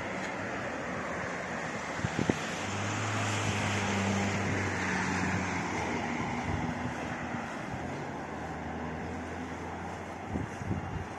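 Steady outdoor rushing noise of wind and distant traffic. A motor vehicle's low engine hum swells and fades away through the middle, and a few soft knocks come near the end.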